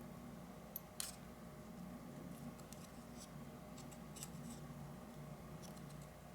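Faint small clicks and scrapes of a tool prying up the tabs of the metal shield can on a flip phone's circuit board, with one sharper click about a second in.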